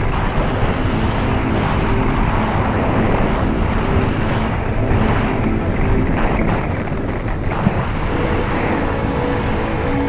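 Steady wind rush over a body-worn camera microphone during a fast downhill ski run, with skis scraping over packed, tracked snow.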